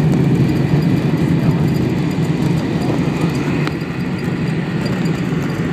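Cabin noise inside a Boeing 747 rolling out on the runway just after touchdown: a steady low rumble of engines, airflow and wheels, easing a little about four seconds in as the airliner slows.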